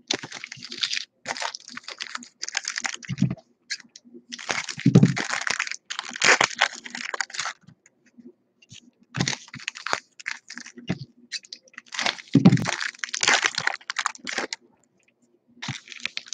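Hands handling trading cards and foil pack wrappers: bursts of crinkling and crackling with quick card-on-card clicking, and a few soft thumps on the table.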